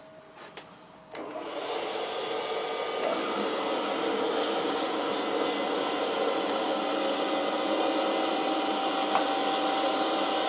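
A surface grinder is switched on after a few light clicks about a second in: the spindle motor and grinding wheel run up to speed over a couple of seconds and settle into a steady whine.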